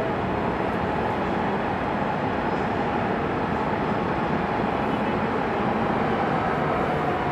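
Highway traffic flowing steadily: many vehicles' tyre and engine noise blended into one continuous, even wash of sound.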